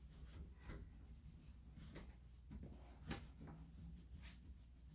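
Near silence in a small room: a low steady hum with a few faint, short rustles and light knocks.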